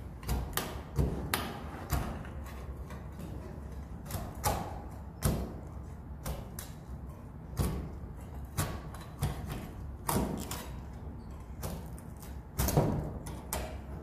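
Irregular knocks and thumps, roughly one a second and some in pairs, over a low steady rumble.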